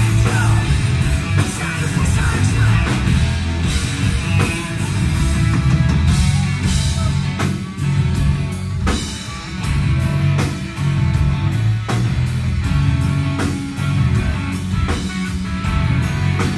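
Rock band playing live: loud electric guitars, bass and drums with singing, heard from within the audience.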